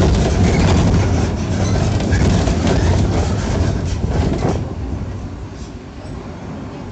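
Mercedes-Benz OF-1418 bus under way, its diesel engine and exhaust running loud with a deep rumble and rattling. The level drops about four and a half seconds in.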